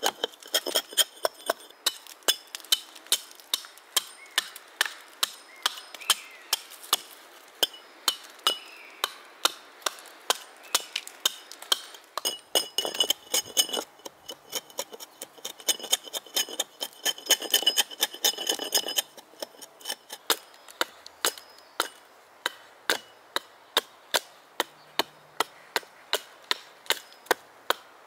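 Small hand axe hewing a birch blank held upright on a log: a steady run of sharp strikes into the wood, about two a second, with chips splitting off.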